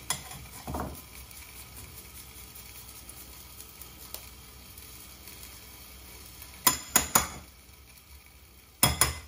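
A garlic clove rubbed on a fine metal rasp grater over a bowl: a soft, steady rasping, then sharp metal clinks of the grater against the bowl, three about seven seconds in and two more near the end.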